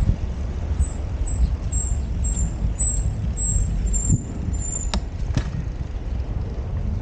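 Steady low wind noise on the microphone and road noise from a bicycle being ridden, with faint high-pitched chirps over the first few seconds and two sharp clicks about five seconds in.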